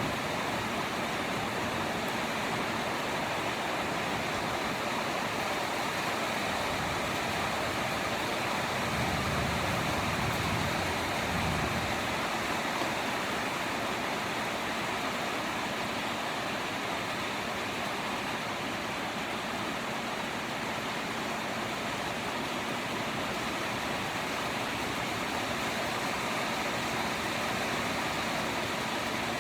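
Steady rain falling, an even hiss with no breaks, and a brief low rumble about ten seconds in.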